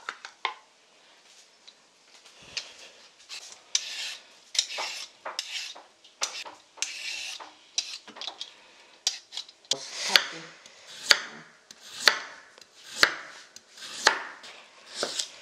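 A wooden spoon scrapes thick porridge out of a pot and stirs it in a stainless steel bowl, with scraping and clinking against the metal. About ten seconds in this gives way to a knife slicing a raw carrot on a wooden cutting board, about one cut a second, each ending in a sharp knock on the board.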